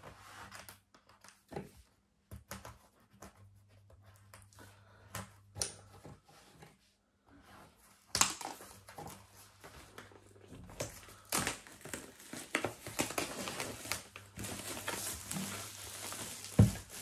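Plastic shrink-wrap being slit with small scissors and then torn and crinkled off a cardboard box: scattered small clicks and crackles at first, denser crinkling from about halfway through, and a single low thump near the end.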